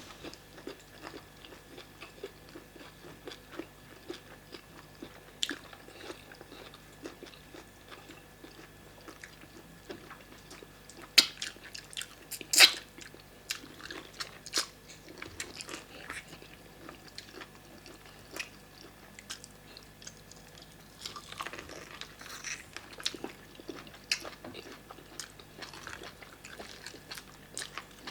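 Close-up chewing and biting of fufu and vegetable soup with assorted meat: continual small wet mouth clicks, with two sharp, louder crunches near the middle.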